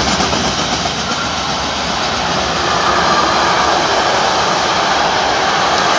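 Freight train of silo wagons rolling past, a loud, steady noise of steel wheels running on the rails.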